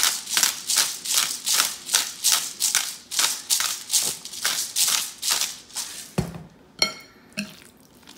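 Salt shaken from a salt shaker bottle, with grains rattling in a quick steady rhythm of about three to four shakes a second, stopping about six seconds in. Then a thump as the shaker is set down, and a short ringing clink of a spoon against the glass bowl.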